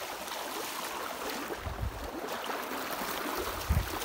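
Shallow river water rushing steadily over stones, with a few low thuds about halfway through and again near the end.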